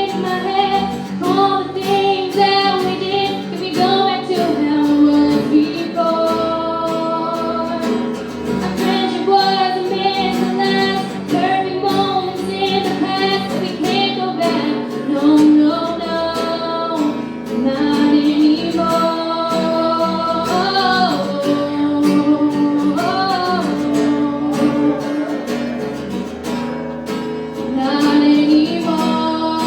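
Female singing with guitar accompaniment, live, with held notes that waver in vibrato.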